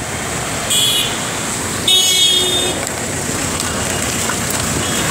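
Highway traffic running steadily on a wet road, with a vehicle horn honking twice: a short toot under a second in and a longer honk about two seconds in.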